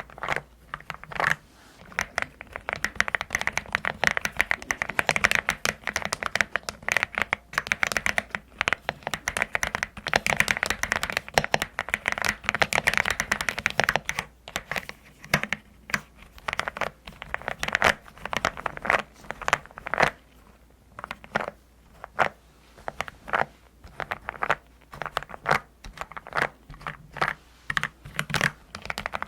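Typing on a custom-built mechanical keyboard with a deep, pebble-like clack. Fast, crowded keystrokes for the first half, then slower, separate presses.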